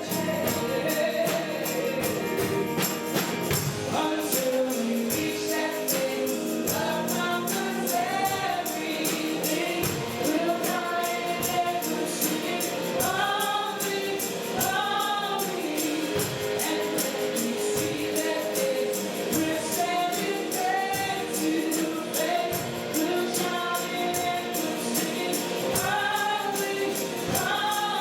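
Gospel worship song with voices singing together over instrumental backing and a steady tambourine beat.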